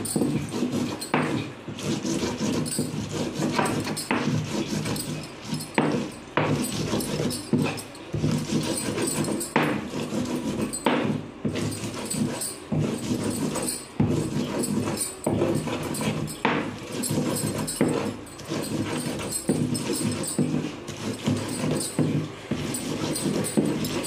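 A hand-held grinding stone rubbed back and forth over a board, crushing whole dried red chillies and garlic into a chutney paste: continuous rough scraping with a sharp knock now and then.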